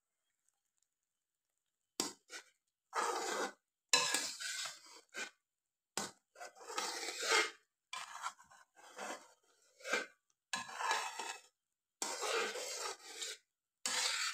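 Slotted metal spatula stirring and scraping a thick, bubbling peanut-and-sugar-syrup mixture around a metal pan, in irregular strokes of about a second each, starting about two seconds in.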